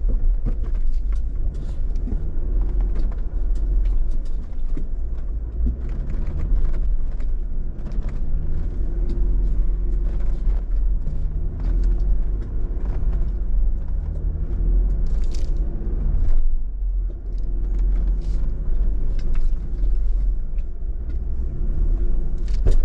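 Off-road vehicle's engine pulling slowly up a rocky trail climb: a steady low rumble with the engine note rising and falling. Frequent small clicks and knocks run through it as the vehicle crawls over rock.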